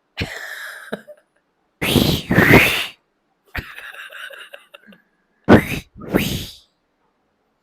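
Silly mouth and throat noises made on purpose for the other player to copy: a string of short, breathy, sneeze- and cough-like bursts, the loudest two about two seconds in and another two near the end.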